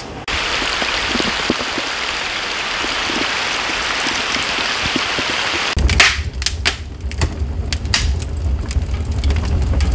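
Heavy downpour hissing steadily on the surface of a pond. About six seconds in it cuts to a wood fire burning in an open firebox, with sharp crackles and pops over a low rumble.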